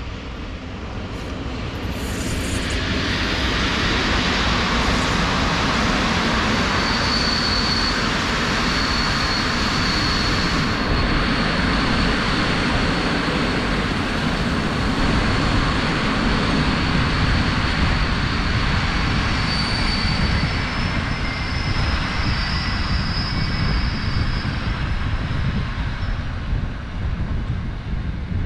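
A train passing at close range: a steady rumble and rush of rail noise that builds over the first few seconds and then holds loud, with a faint high whine now and then.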